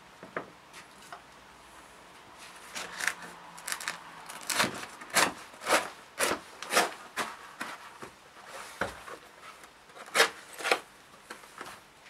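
Stiff, dried wild boar hide crackling and rasping as it is handled and worked with a blade: a run of sharp, irregular scrapes, one or two a second, starting about three seconds in.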